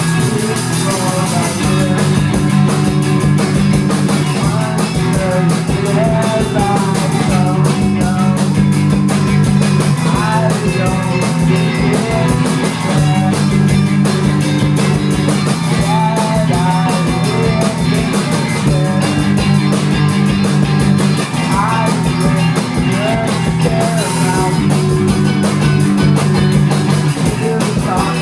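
A rock band playing a song live, led by guitar, with bass and drums, recorded on a phone.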